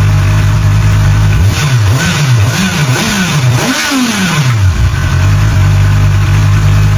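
Honda CB500SF's four-cylinder engine idling, then revved with several quick throttle blips, the last going highest, before dropping back to a steady idle.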